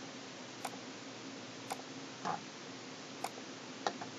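Faint, sharp ticks or clicks, roughly one every second or so, over a low steady hum.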